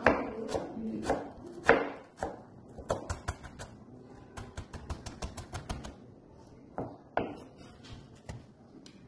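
Chef's knife finely chopping an onion on a plastic cutting board: a series of sharp taps of the blade on the board, quickening in the middle to about five or six strokes a second, with a few heavier knocks.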